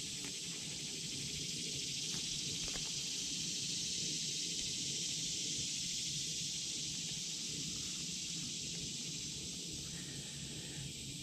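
Steady, high-pitched chorus of insects droning in the trees, swelling slightly and easing off again, with faint handling rustle underneath.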